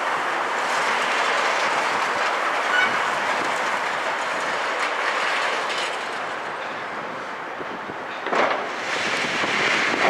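Demolition of a concrete building by hydraulic excavators: a steady clatter and crunch of concrete and rubble being broken and dropped, with the machines' engines running beneath. There are two louder crashes about eight seconds in and near the end.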